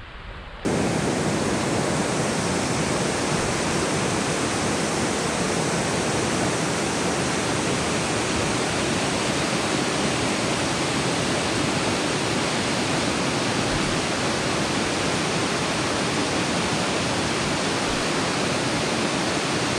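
River rapids: whitewater rushing loudly and steadily as one even noise, starting abruptly just under a second in.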